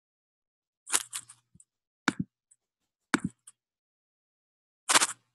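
Computer mouse clicks, sharp and close to the microphone, in four short bunches about a second apart, some of them doubled, made while picking a colour with the eyedropper tool.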